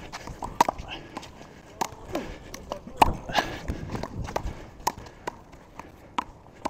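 One-wall handball rally: sharp, irregular smacks as the rubber ball is struck by hand and slaps off the wall and the court, the loudest about three seconds in, with quick sneaker footsteps and scuffs between hits.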